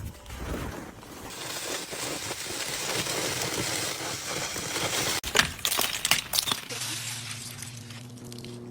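Ice cracking and breaking up: a hissing scrape that builds over the first few seconds, then a run of sharp cracks and clinks about five to six seconds in.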